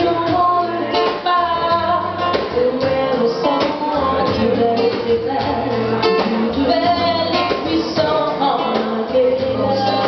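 Live acoustic song: two women's voices singing a melody over a strummed acoustic guitar with a steady low line of repeated notes.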